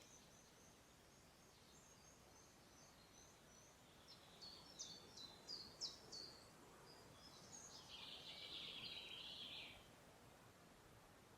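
Wild songbirds singing faintly over a quiet background hiss: a run of short high notes, then a louder series of sharp descending notes about halfway through, and a dense warbling phrase that stops shortly before the end.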